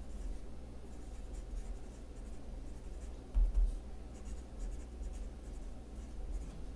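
Handwriting on spiral notebook paper: the writing tip scratches in short strokes as words are written. A dull low thump comes about three and a half seconds in.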